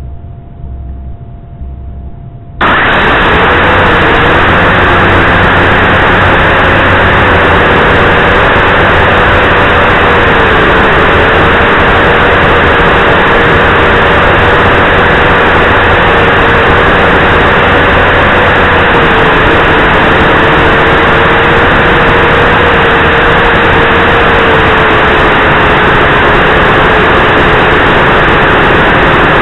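Heli-Max 230SI quadcopter's electric motors and propellers, heard through its own onboard camera. The motors spin up suddenly about two and a half seconds in, then run at a loud, steady whir with a whine whose pitch wavers slightly through the flight.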